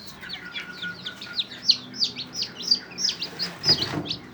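Newly hatched ayam kampung super chicks peeping: many short, high, falling cheeps in quick succession. A brief bump or rustle near the end.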